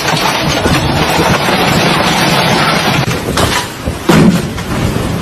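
Violent storm wind blowing hard and steadily across the microphone, with stronger gusts buffeting it about three and four seconds in.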